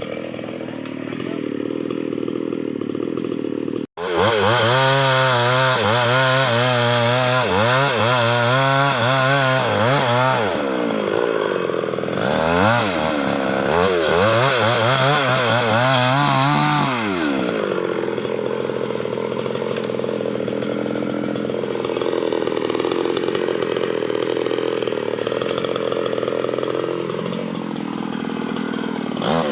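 Stihl 381 two-stroke chainsaw running hard while felling a teak tree, its engine pitch rising and falling under load. There is a momentary break about four seconds in. After about seventeen seconds the saw holds a steadier pitch, a little quieter.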